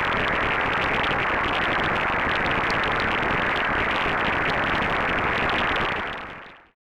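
Distorted-signal static effect: a steady, harsh hiss of noise, like a radio or screen with no signal, fading out about six seconds in.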